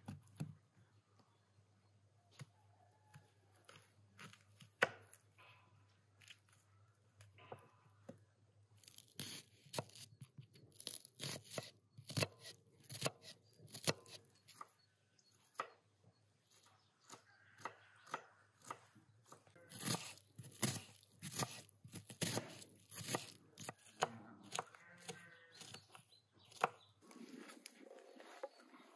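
Kitchen knife chopping onion on a wooden cutting board: a few scattered cuts at first, then fast runs of knife strikes from about nine seconds in as the onion is diced fine.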